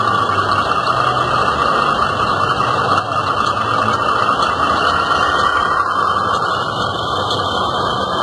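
Scale RC Scania tractor unit's sound module playing a diesel truck engine running steadily at low revs as the model truck creeps along with its tipper trailer.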